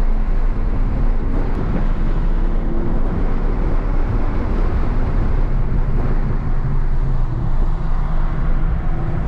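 BMW's engine pulling at speed on a race track, heard inside the cabin with road and wind noise; the sound is loud and steady throughout.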